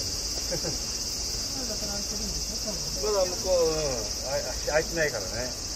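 Steady high-pitched buzzing of summer cicadas, with people's voices mixed in, a voice clearest between about three and five seconds in.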